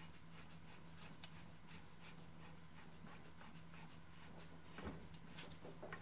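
Faint metal scraping and light clicks as the orbiting scroll of a cut-open scroll compressor is turned by hand, sliding against the fixed scroll on its little tracks, with a slightly louder cluster about five seconds in, over a steady low hum.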